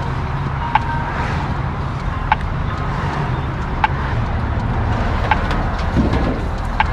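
Steady low rumble of a running vehicle engine, with a sharp short tick repeating about every second and a half.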